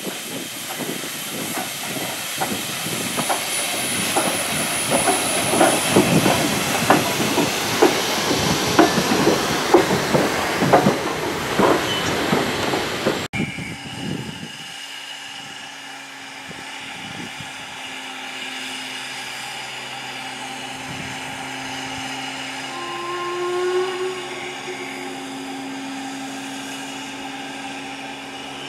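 WD Austerity 2-10-0 steam locomotive moving slowly past close by: irregular clanking from its wheels and motion over a steady steam hiss, growing louder as it nears. About 13 seconds in, the sound cuts abruptly to a much quieter steady low hum.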